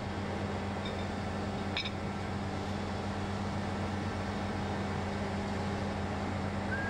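Steady low background hum with an even hiss, with one light metallic click about two seconds in as steel bearing-housing parts are handled.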